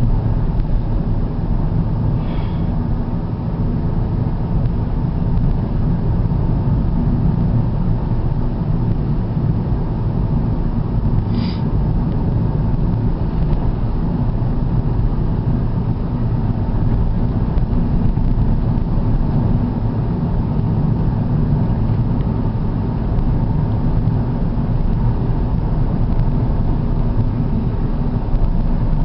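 Steady low rumble of a car's engine and tyres on the road, heard from inside the moving car. A brief faint high squeak comes twice, about 2 and 11 seconds in.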